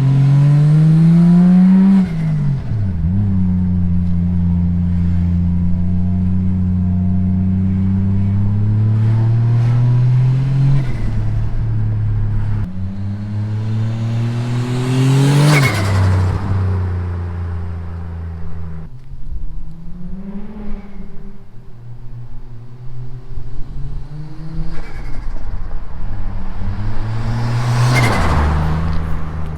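Toyota Chaser's turbocharged 1JZ-GTE straight-six, running with its J-pipe deleted, accelerating hard through the gears. The engine note climbs, then drops sharply on each lift-off or shift, with turbo flutter expected at those drops. The car passes close by twice, about halfway through and near the end.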